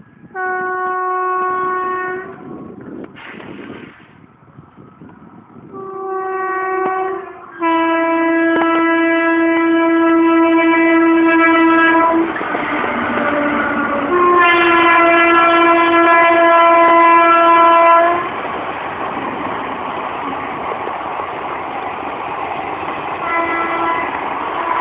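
WAM-4 electric locomotive's horn sounding five blasts: two short ones, then two long blasts of about four seconds each, and a short one near the end. From about halfway the train runs past with a steady rumble and clatter of wheels on rail.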